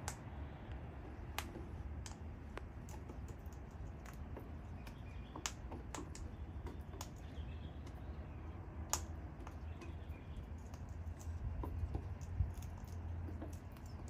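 Parrots feeding: irregular sharp clicks and taps of beaks pecking and cracking seeds, over a steady low rumble.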